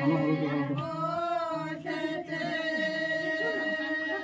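Several voices singing a wedding song together, unaccompanied, in long held and slowly bending notes.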